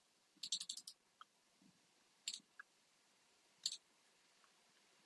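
Faint clicking of a computer keyboard: a quick run of keystrokes about half a second in, then single clicks about two and a quarter and three and a half seconds in.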